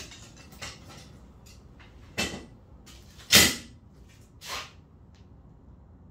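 Five short knocks and clunks of rock, two louder ones about two and three and a half seconds in, as the halves of a freshly cracked geode are handled and knocked together or set down.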